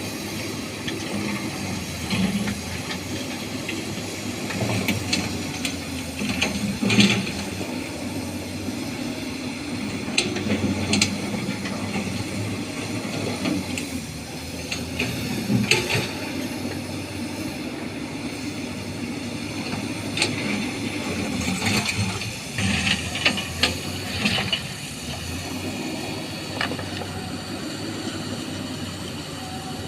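Excavator's diesel engine running steadily, overlaid with intermittent clatter and knocks of small stones being scooped and dropped, in clusters about a quarter of the way in, around halfway and again about three quarters through.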